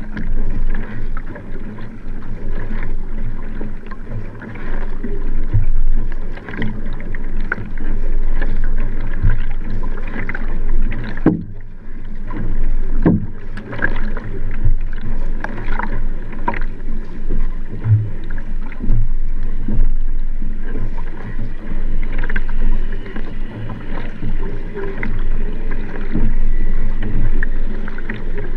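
Nelo Vanquish sprint racing kayak underway at race pace: water rushing along the hull with a splash from the paddle blade at each stroke, heard up close from the back deck.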